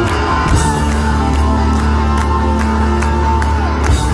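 Live rock band playing: electric guitar holding chords over steady drum beats.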